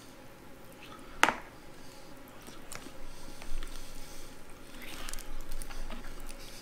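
A person biting and chewing fried chicken, with one sharp crunch about a second in, then crackling as the crispy breaded skin is pulled apart by hand.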